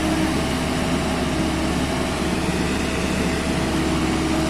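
A diesel engine running steadily at a constant speed, with a steady hum.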